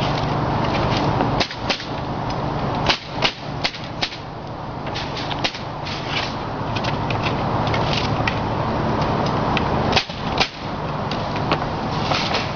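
Cedar shakes being fastened with stainless steel fasteners on a roof: sharp, irregular nailing shots over a steady machine hum.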